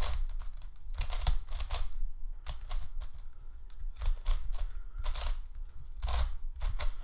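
Fangshi LimCube Dreidel plastic twisty puzzle being turned by hand: its pieces clack as the layers turn, in short runs of clicks about once a second with brief pauses. The puzzle still turns stiffly after lubing.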